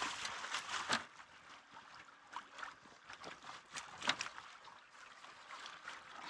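A large snagged fish thrashing and splashing at the surface right beside the boat as it is landed, water slapping and sloshing, with a few sharp splashes or knocks, the loudest in the first second and another about four seconds in.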